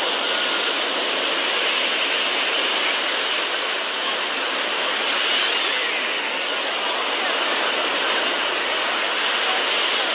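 Surf on a sandy beach: small waves breaking and washing up the sand, a steady hiss of foam that swells and eases gently.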